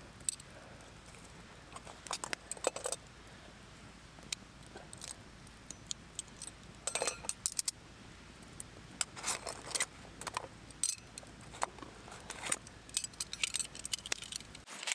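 Small metal pieces jangling and clinking in short, irregular clusters, busiest in the second half.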